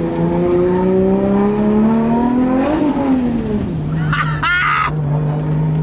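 Nissan Skyline R34's straight-six engine heard from inside the cabin, accelerating with its pitch rising steadily for about two and a half seconds, then dropping as the throttle comes off, and running steadily near the end.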